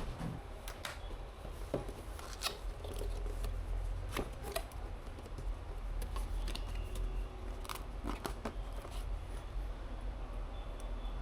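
Irregular small clicks and taps of hardware being handled during a PC build, over a low steady hum.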